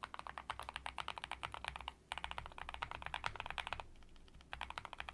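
Fast typing on a mechanical keyboard fitted with Gateron North Pole V2 Yellow linear switches: a quick, dense run of key strokes, pausing briefly about two seconds in and again for about half a second near four seconds in.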